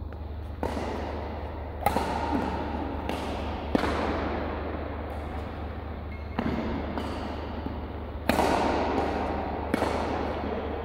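Badminton rally: rackets striking a shuttlecock in sharp cracks about every one to two seconds, each echoing in a large sports hall. A steady low hum runs underneath.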